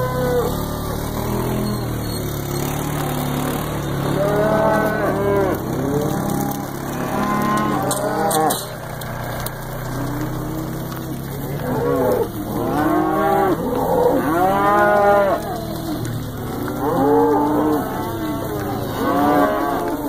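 Beef cattle in a herd mooing: long, drawn-out calls from several animals, a few in the first half and then many overlapping ones in the second half.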